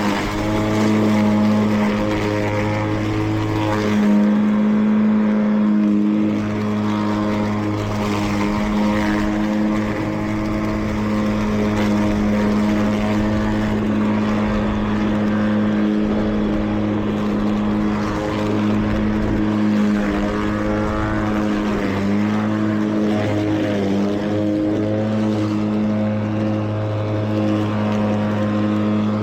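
The battery-electric blade motor of a 2WD Mowrator remote-control mower, spinning at speed while mowing: a steady, loud whirring hum that dips briefly in pitch a few times.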